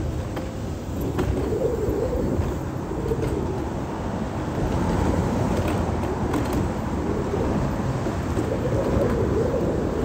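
Wheelchair rolling along a concrete sidewalk: a steady rumble of wheels and motion noise picked up by a phone mounted on the chair.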